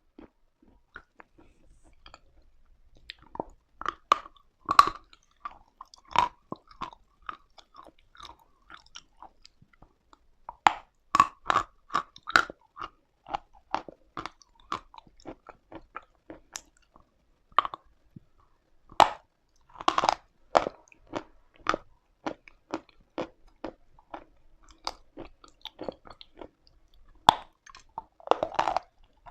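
Close-up biting and chewing of dry edible chalk: sharp crunches and crackles in irregular clusters with short pauses between, starting faintly for the first few seconds.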